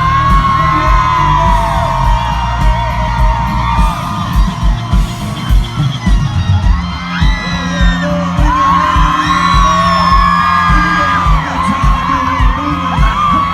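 Live country music concert heard from within the audience: the band playing loud with a steady kick-drum beat, and the crowd whooping, cheering and singing along over it.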